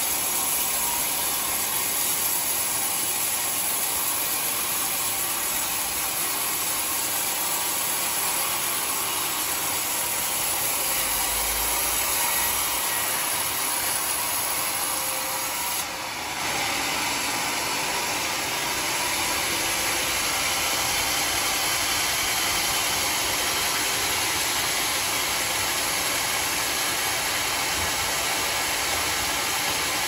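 Homemade sawmill's blade cutting lengthwise through an old coconut-palm (glugu) log, a steady, loud sawing noise with the machine running under load. There is a brief drop about halfway through.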